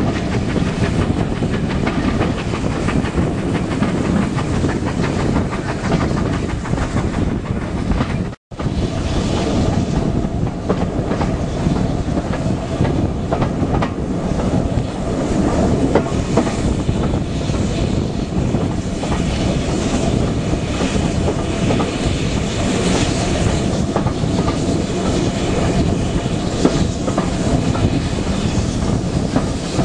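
Carriage of a heritage steam train running along the line: a steady rumble of wheels on rails with a clickety-clack over the rail joints, heard at an open carriage window. The sound cuts out completely for a split second about eight seconds in.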